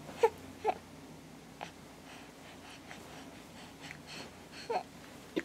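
An infant making a few short, breathy coos and grunts, spaced out with quiet gaps between them: two close together at the start, two more near the end.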